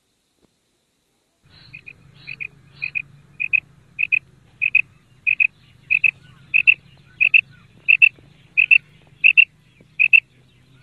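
Female quail (madi batair) calling: a steady series of paired notes, about one pair every two-thirds of a second, growing louder as it goes on.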